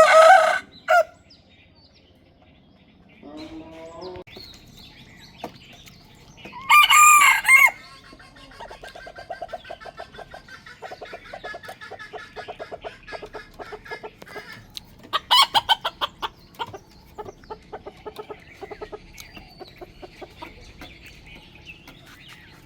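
Rooster crowing: a loud crow at the start and another about seven seconds in, followed by a long run of rapid clucking calls from chickens.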